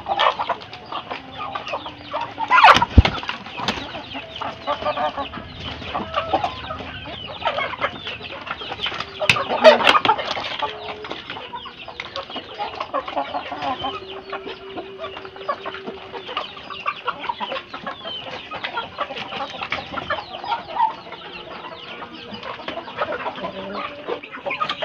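A flock of free-range village chickens (ayam kampung crossed with Bangkok gamefowl) clucking and squabbling as they crowd in to feed, with wing flaps. Two louder bursts stand out, about three seconds and ten seconds in.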